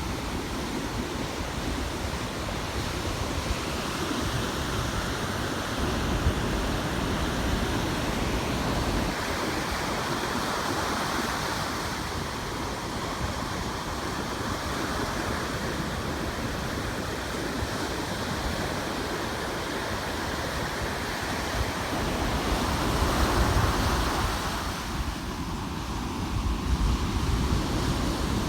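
Ocean surf washing steadily onto the beach, with wind rumbling on the microphone. The rush swells louder once, near the end.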